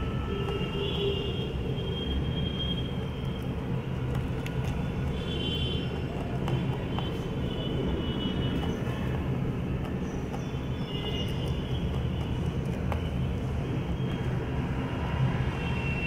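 A steady low rumble throughout, with faint scattered crisp clicks of a rabbit nibbling and crunching dry pellets.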